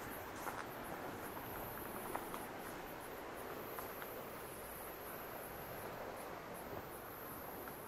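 Insects trilling in a high-pitched chorus that swells and drops in stretches of a second or two, over a few faint scattered ticks.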